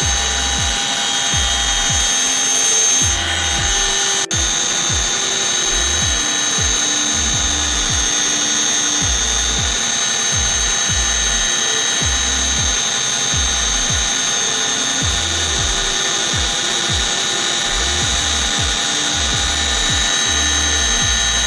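Background music with a deep stepped bass line and booming kick drums, over a steady high-pitched whine.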